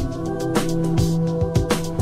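Electronic background music with a steady drum beat under held synth chords.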